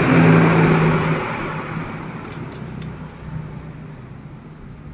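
A motor vehicle's engine passing close by, loud at first and then fading away over the first couple of seconds, leaving a low hum. A few light clicks about two and a half seconds in.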